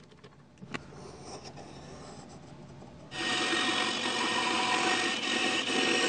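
A band saw cutting through plywood: a steady, loud whirring noise with a held whine that starts suddenly about three seconds in and eases near the end. Before it there is only faint handling noise and a small click.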